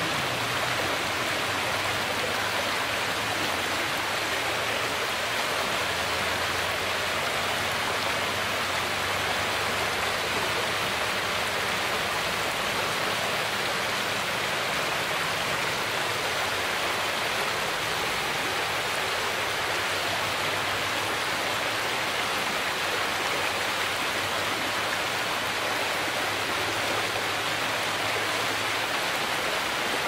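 Shallow stream rushing and splashing over a rocky bed and small ledges, a steady even rush of water.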